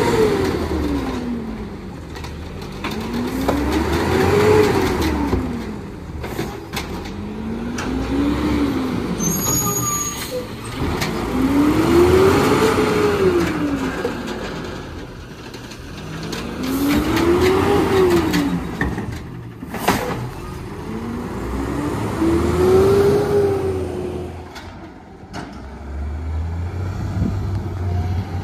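CNG engine of a 2011 Peterbilt 320 side-loader garbage truck revving hard, climbing and dropping in pitch six times, roughly every four to five seconds, as the automated arm lifts and dumps carts. A few sharp knocks come between the revs.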